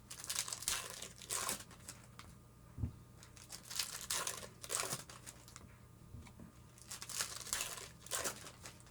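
Foil wrappers of baseball card packs being torn open and crinkled by hand, in a string of irregular crackling rips.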